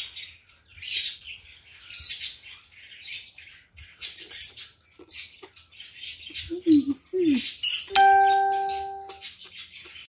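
Close-up eating sounds from curry laksa noodles: slurping and chewing in short noisy bursts about every half second to second. A steady chime tone sounds for about a second near the end.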